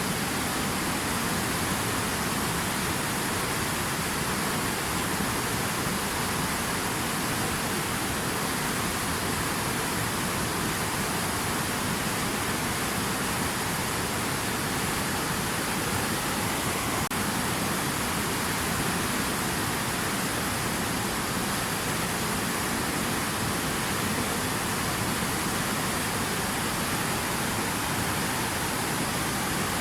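Water rushing steadily: an even, unbroken hiss with no changes.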